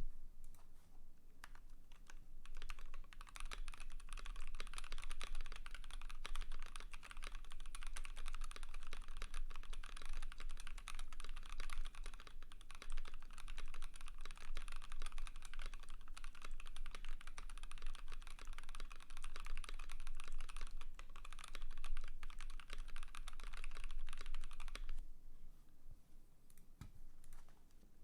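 Continuous fast typing on a Keychron Q1 mechanical keyboard with lubed Gazzew Boba LT switches, an aluminium plate and PBT dye-sub keycaps: a dense, steady stream of key clacks that thins out to a few scattered presses near the end.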